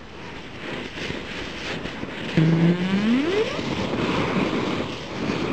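Deodorant aerosol can heating in a fire, its propellant jetting into the flames with a growing hissing rush. About two and a half seconds in, a tone rises sharply in pitch. At the very end comes a sharp bang as the can bursts.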